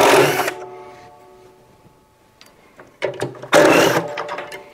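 Cordless drill-driver running in two short bursts, one at the start and one from about three seconds in, undoing Torx T20 screws from a washing machine's concrete counterweight. A fainter steady hum fades after each burst.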